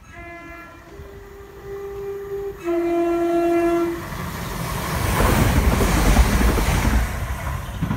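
Southern Class 171 Turbostar diesel unit sounding its two-tone horn: a low note, then a higher note, then a longer, louder low note, about four seconds in all. The train then passes close at speed with a loud rushing rumble, loudest a little past the middle.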